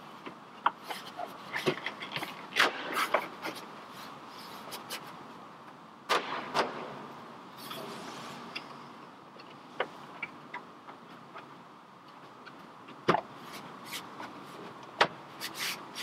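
Hard plastic lower dash panel of a Jeep Wrangler TJ clicking and knocking as it is worked and seated into place, with irregular taps and rubbing; the loudest knocks come about six and thirteen seconds in.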